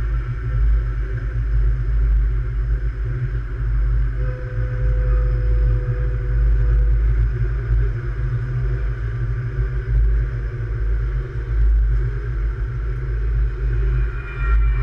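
Electric light rail train running along the track: a steady heavy low rumble, with a faint whine about four to seven seconds in.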